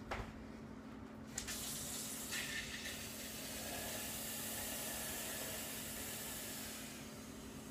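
Kitchen tap running into a stainless steel sink: the water comes on with a click about a second and a half in and is shut off near the end, with a little clatter in the sink shortly after it starts.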